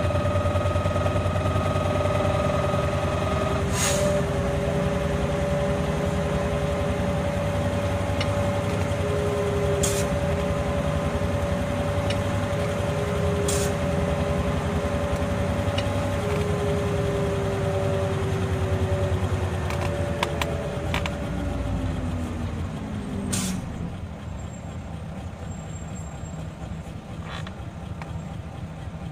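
Isuzu Erga city bus heard from on board: the engine drone and a steady drivetrain whine while it drives, with a few sharp knocks. Near the end the whine falls in pitch as the bus slows to a stop, a short sharp sound comes as it halts, and the engine then idles more quietly.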